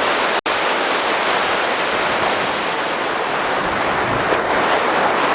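Ocean surf washing onto a beach as a steady rush, with wind blowing across the microphone. The sound cuts out for an instant about half a second in.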